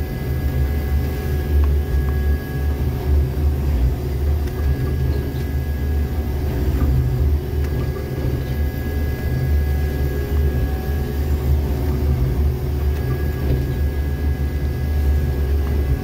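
Jackson 6700 rail tamper's diesel engine running steadily, a loud low rumble heard from inside the operator's cab, with a faint high whine coming and going.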